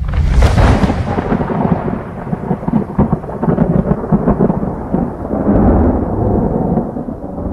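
Thunder: a sharp crack at the start, then a long rolling rumble with crackles that swells and ebbs.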